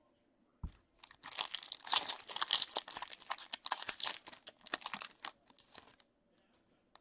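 Foil wrapper of an Upper Deck Ice hockey card pack being torn open and pulled apart by hand: a dense crinkling and tearing that starts about a second in and stops near the end, with a soft thump just before it.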